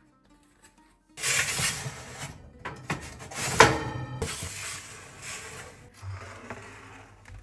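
Metal baking tray scraping and rubbing as it is slid onto an oven's wire rack. It starts suddenly about a second in, with a sharp metallic clank and a short ring about three and a half seconds in, and the scraping dies away near the end.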